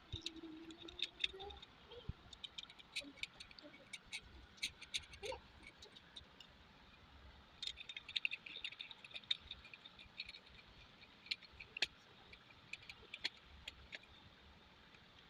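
Faint, scattered light clicks and taps of ceiling-fan parts being handled during assembly, irregular throughout, with brief clusters of high chirpy clicking about a second in and about eight seconds in.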